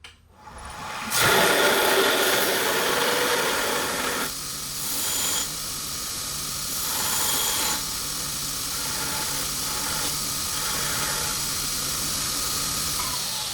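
AmeriBrade 2x72 belt grinder running, starting about a second in, with the steady hiss of a steel piece being ground against the belt. Near the end the motor's pitch falls away as it winds down.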